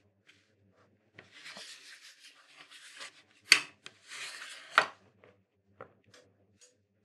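A thin plywood carving block being slid and turned on its board: a scraping rub of wood on the surface, then two sharp knocks about a second apart as the block is lifted and set back down.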